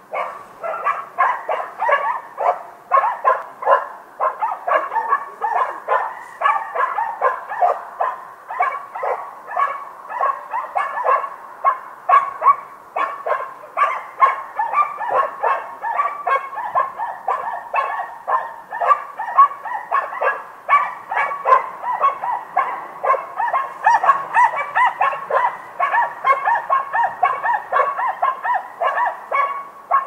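Several dogs barking in the distance, their barks overlapping in a dense, unbroken run of several barks a second.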